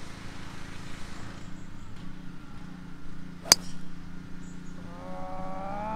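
A golf club strikes a golf ball once, a single sharp crisp click about three and a half seconds in. Near the end a voice calls out briefly.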